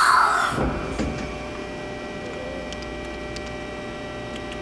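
Mori Seiki NH4000 DCG horizontal machining center running with a steady hum during an automatic pallet change. A loud hiss cuts off about half a second in, and a few faint clicks follow.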